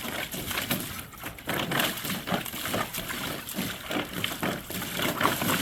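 A dog playing in a shallow kiddie pool, the water sloshing and splashing in irregular bursts.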